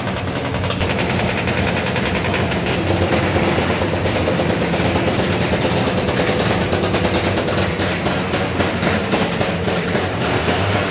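A loud vehicle engine running with a rapid, rattling exhaust beat.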